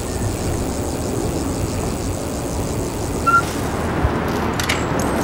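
Low, steady rumble of vehicle traffic that builds slightly, with a short high beep about three seconds in and a few light clicks near the end.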